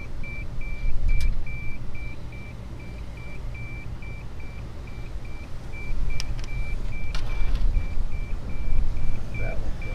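Digital instant-read meat thermometer beeping: a fast, even series of short, high beeps, about two to three a second, over a low rumble.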